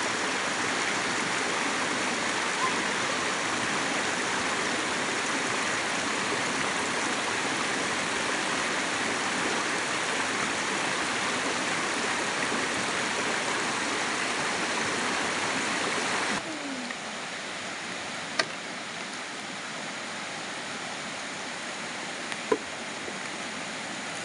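Rushing river water running over rocks and small rapids, a steady, even rush. About sixteen seconds in it drops abruptly to a quieter, softer rush of flowing water, with a couple of sharp clicks later on.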